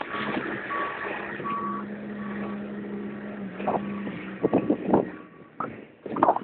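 A vehicle's reversing alarm beeping over the steady hum of its running engine; the engine hum fades about four seconds in, and a few sharp knocks follow.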